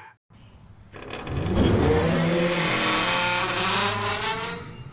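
A car engine revving hard with tyres squealing. It builds up about a second in and eases off near the end.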